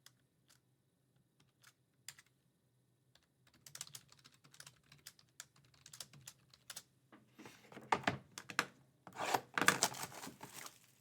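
Typing on a computer keyboard: a few scattered keystrokes at first, then steadier, faster typing that gets louder in the second half.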